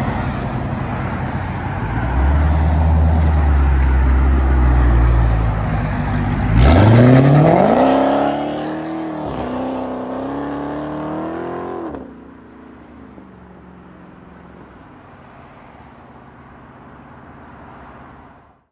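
Dodge Charger Hellcat's supercharged 6.2-litre Hemi V8 running at low revs, then accelerating hard about six seconds in. The engine pitch climbs steeply, dips once at a gear change and climbs again. The sound drops off sharply around twelve seconds in, leaving a fainter, steady engine sound.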